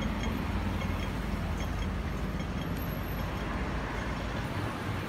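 Urban street traffic noise, with a taxi driving past through the junction: a steady low rumble of engines and tyres that eases near the end.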